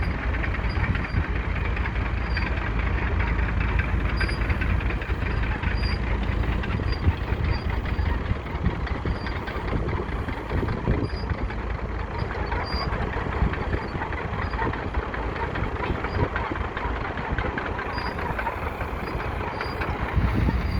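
Massey Ferguson 65 tractor's four-cylinder diesel engine running steadily.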